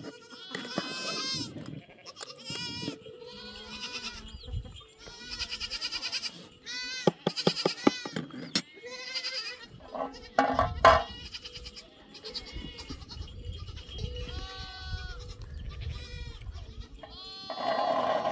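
A herd of goats bleating: many high calls overlapping one after another throughout, with a sharp knock about eleven seconds in.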